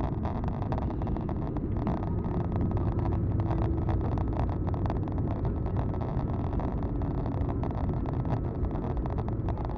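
Airbus A220-300 cabin noise during the landing: a steady low rumble of the Pratt & Whitney PW1500G geared turbofans and airflow, with rapid irregular clicks and rattles throughout.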